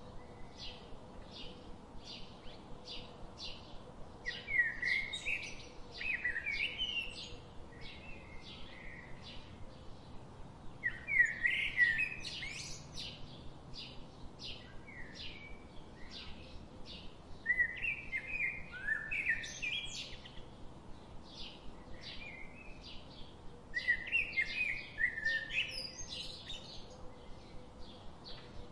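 Songbirds singing: a steady run of short, high chirps about two to three a second, with louder warbling song phrases breaking in every six seconds or so.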